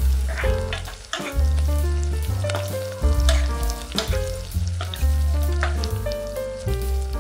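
Chicken sausage slices sizzling in oil in a nonstick frying pan, stirred with a spatula that scrapes across the pan. Background music with a deep, steady bass line plays over it.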